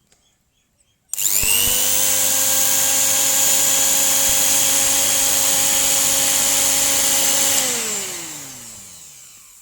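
Mixer grinder's universal motor, run bare outside its body at speed 1: it starts about a second in with a quickly rising high whine, runs steadily for about six seconds, then is switched off and its pitch falls as it coasts to a stop. One carbon brush is seated slightly poorly, so it sparks on one side while the other runs clean.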